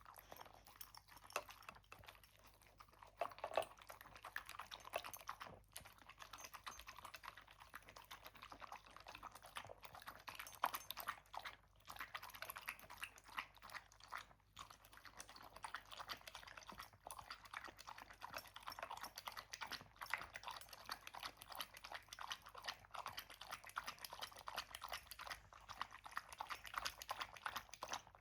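A small pet eating its breakfast of dry food: rapid, faint crunching and clicking that goes on steadily, with a few sharper clicks.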